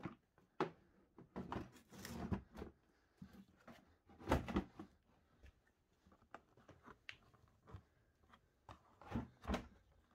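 Hands handling the plastic body panels and under-seat storage bin of a Yamaha X-Max 125 scooter: irregular clicks, knocks and scrapes of plastic, loudest about four seconds in and twice near the end.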